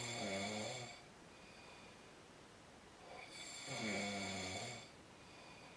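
A sleeping man snoring: two long snores, one at the start and another about three seconds later.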